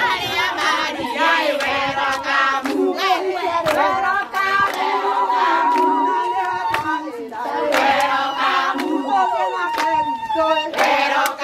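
A group of women singing together in unison, accompanied by steady rhythmic hand clapping. About halfway through, one voice holds a high, fast-warbling cry above the singing.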